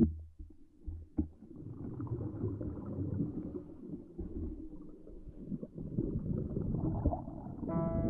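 Muffled underwater rumbling and gurgling, with a few sharp knocks in the first second or so. Piano music comes in just before the end.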